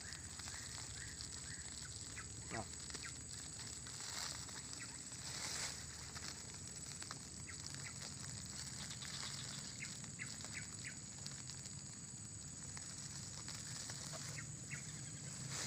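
Woven plastic sack rustling and crinkling in short scattered crackles as it is handled and opened by hand, over a steady high-pitched whine.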